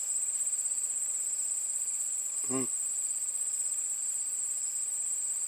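Steady, high-pitched chorus of insects such as crickets, continuous throughout, with a short low hum about two and a half seconds in.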